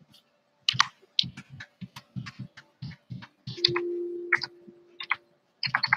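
Irregular clicks and taps of a computer keyboard and mouse, with a short steady hum a little past halfway.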